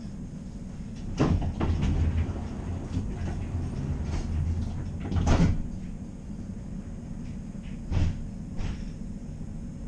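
Clunks and knocks from the doors of a stopped passenger rail vehicle being worked, over a low hum from about one to five and a half seconds in; the loudest clunk comes a little after five seconds.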